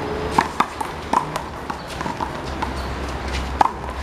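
Rubber handball rally: a string of sharp, irregularly spaced smacks as the ball is slapped by hand and bounces off the wall and the court, the loudest one near the end.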